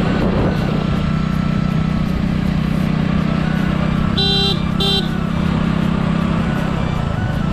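Motorcycle engine running steadily while riding, heard from the rider's seat, with two short horn beeps about four and five seconds in.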